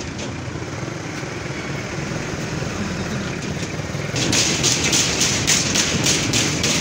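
Vehicle on the move, with steady road and engine noise. About four seconds in, a louder hiss with rapid tapping sets in suddenly.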